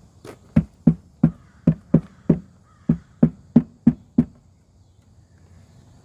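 About a dozen hollow knocks on a wooden subwoofer box, roughly three a second, unevenly spaced, stopping just past four seconds in; the box has a buckled, split side and pulled-out screws.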